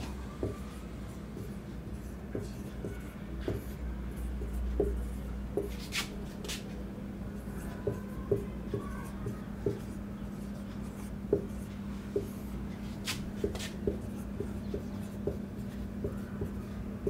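Marker pen writing on a whiteboard: irregular light taps and short strokes as the letters are drawn, over a steady low hum.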